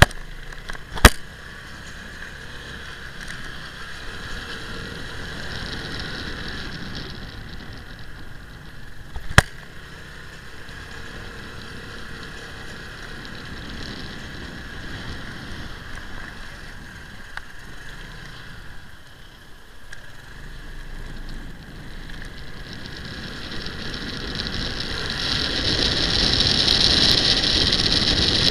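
Wind and road noise of a motorcycle riding over brick paving, with two sharp knocks, about a second in and about nine seconds in. The rush grows louder over the last few seconds.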